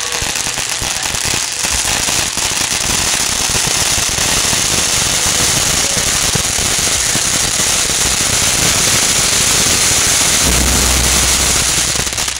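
Ground fountain firework (a silver-rain 'vulcão' with smoke effect) spraying sparks with a dense, continuous crackling hiss. A low rumble joins underneath near the end.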